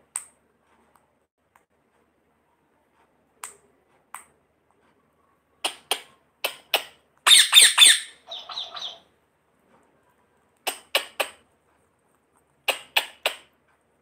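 Indian ringneck parakeet squawking: short, harsh, high calls in clusters of two to four, the loudest run about seven seconds in.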